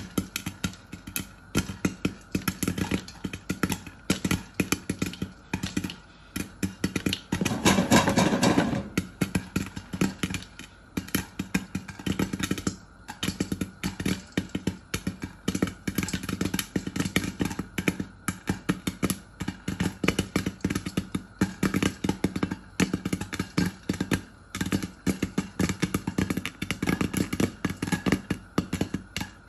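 Popcorn popping rapidly in a lidded pan, many sharp pops a second. About eight seconds in there is a louder burst of noise lasting about a second.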